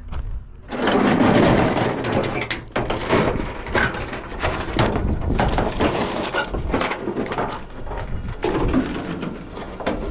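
Scrap metal being handled: a dense run of clattering, knocking and scraping that starts about a second in and keeps going.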